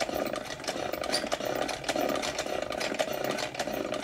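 Vulcan toy sewing machine running and sewing a chain stitch through cloth, its needle bar and drive mechanism giving a fast, even clatter of rapid clicks.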